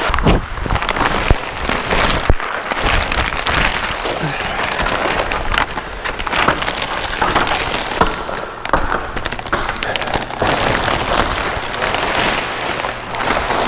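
Thin plastic sheeting crinkling and rustling as it is unrolled and pulled up over a ladder and frame, with sharp irregular crackles throughout.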